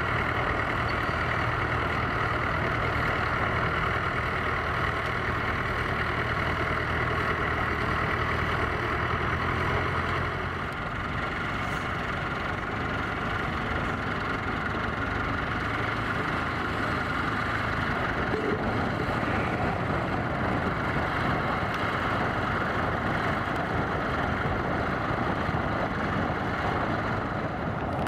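Tractor engine running steadily. Its low, even engine note drops away about ten seconds in, leaving a rougher, noisier rumble.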